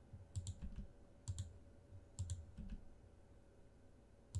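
Computer mouse clicks and keyboard key presses, short and sharp with a soft low thump under each, coming irregularly about five times in the first three seconds, then pausing. This is a person working a mouse and pressing the G key to move mesh vertices in Blender.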